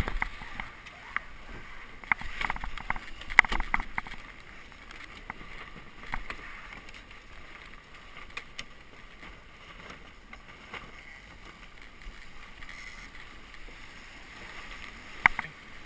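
Water rushing and splashing along a Melges 17 sailboat's hull under sail, with a cluster of sharp knocks and clicks in the first four seconds and another sharp knock near the end.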